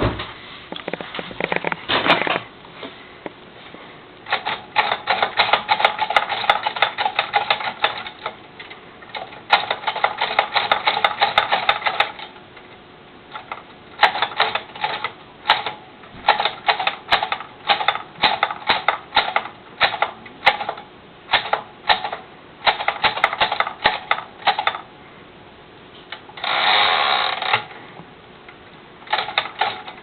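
Moskva manual typewriter being typed on: sharp key strikes in quick runs, then a slower, more spaced sequence, broken by pauses. Near the end there is one longer rasp of about a second and a half before the typing resumes.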